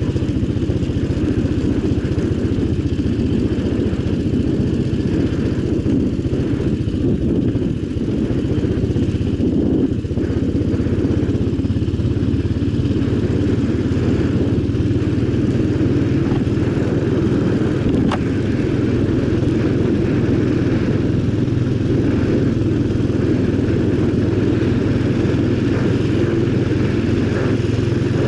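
ATV (quad bike) engine running steadily under way, with no clear revving.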